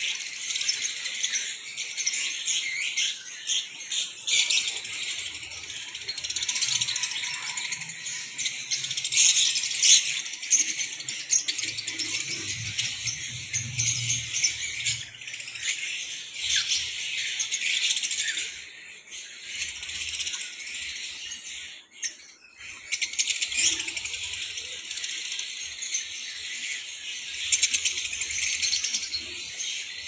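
A flock of lovebirds in an aviary chattering non-stop: many high, rapid, overlapping chirps and squeaks run together into a constant din, with brief lulls about two-thirds of the way through.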